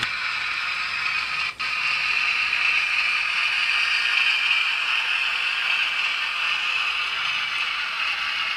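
Rivarossi E428 model electric locomotive, sound version, running along the layout track: a steady whirring hiss from the running model, a little louder around the middle as it passes close.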